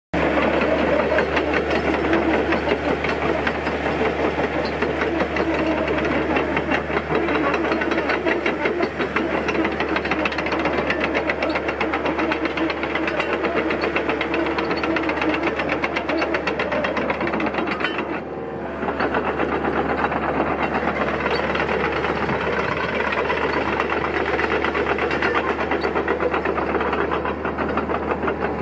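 Diesel engine of a Hitachi EX60 7-tonne excavator running steadily with a rapid, even knock. The level dips briefly about two-thirds of the way through.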